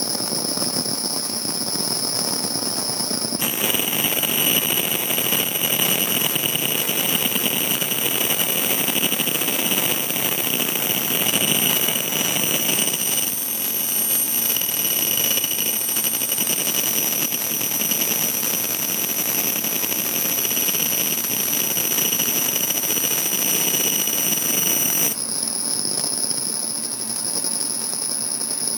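Laser engraving machine running while it etches lettering into a stone: a steady rushing of fans and air with several high, steady whines on top. The whines shift in pitch about three seconds in and again near the end.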